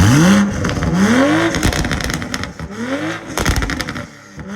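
Toyota GR Supra's B58 turbocharged 3.0 inline-six, running a catless race downpipe into the stock exhaust, blipped hard three times, each rev climbing and falling quickly. Crackling pops come out of the exhaust as the revs drop.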